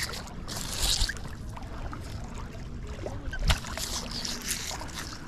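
Hands picking wet seaweed and small scraps of metal off a fishing magnet: rustling, a brief hiss about a second in and one sharp click a little past halfway, over a steady wash of wind and water.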